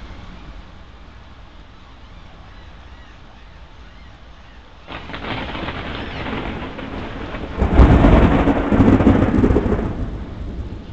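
Thunder from a nearby thunderstorm, rumbling in about five seconds in, growing to its loudest a little under three seconds later, then dying away near the end.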